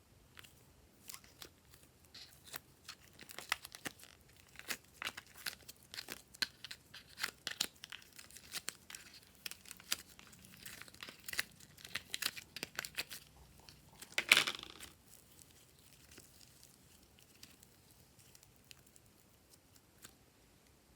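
Glossy slime being worked by hand, giving a dense run of small sticky clicks and pops, with one louder crackling burst about two-thirds of the way through, then only scattered faint clicks.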